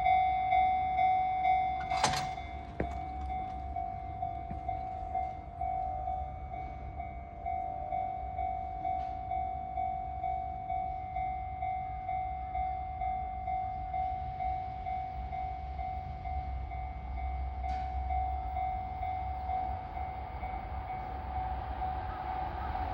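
Japanese railway level-crossing warning bell ringing steadily at about two strokes a second, over the low rumble of train traffic. A short sharp burst sounds about two seconds in, and train noise builds near the end.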